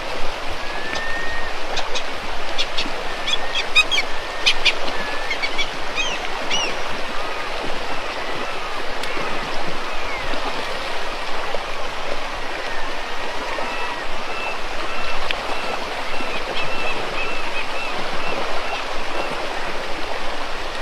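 Rushing river water, a steady rush, with birds calling over it: a cluster of short high chirps in the first several seconds and thin curving calls scattered throughout.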